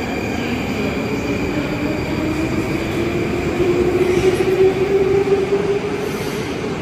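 Moscow Metro train running in the station, its motors giving a whine that rises slowly in pitch and grows louder, then fades near the end, over a steady rumble.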